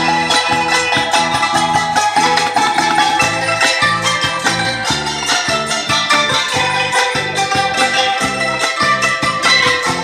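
A street band playing a modern tune on traditional Thai instruments: struck wooden-bar keyboards and a phin lute, over a steady low bass beat of about two or three pulses a second.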